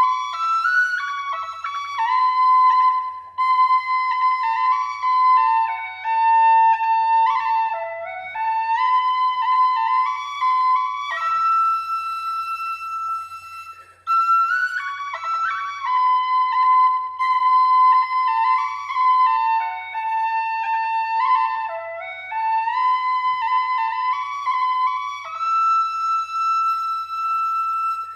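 Background music: a solo flute-type wind instrument playing a slow melody of held and stepping notes, with a brief pause about halfway through.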